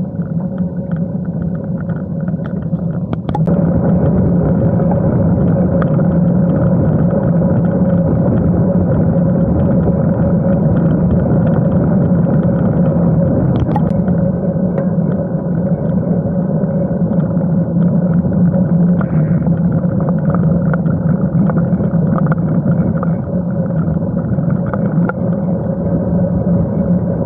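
Wind noise on the microphone of a handlebar-mounted camera on a road bike being ridden: a steady low rushing that gets louder about three seconds in, as the bike gets under way.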